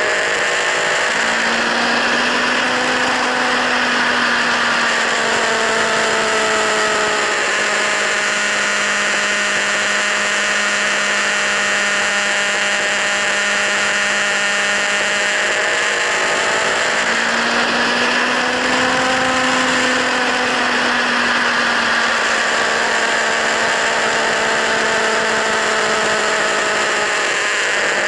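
Kawasaki Z1000's inline-four engine through LeoVince slip-on exhausts, held at steady high revs. The pitch rises and falls slowly twice.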